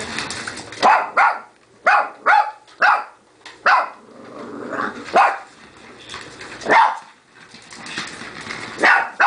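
Small puppy barking in short, sharp barks, about nine in all, a quick run of them between one and four seconds in and then a few spaced-out single barks. It is barking at a remote-controlled toy car that it is afraid of.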